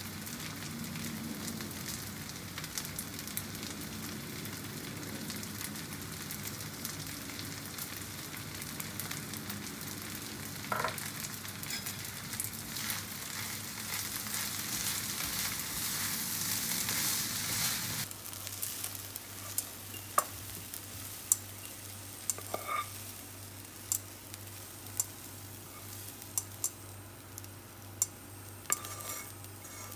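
Black fried rice with kimchi and seafood sizzling in a frying pan while it is stirred with a spatula. About two-thirds of the way in the sizzle drops off sharply, and then the spatula clinks and scrapes against the pan several times, loudly, as the rice is tipped out onto a plate.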